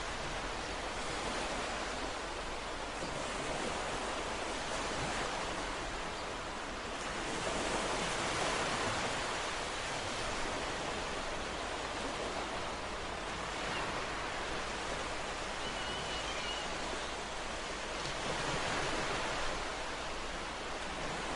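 Ocean waves washing on a shore, a continuous surf hiss that swells twice as waves break and roll in. Near the middle, a faint short high-pitched chirp.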